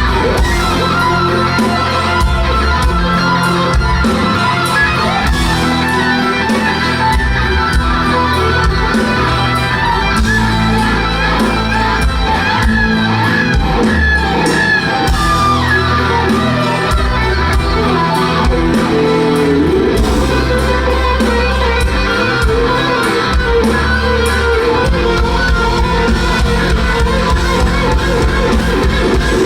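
Live rock band playing loudly, an electric guitar lead over bass and drums in a large hall. About 25 s in, the low end turns to a fast, even pulse.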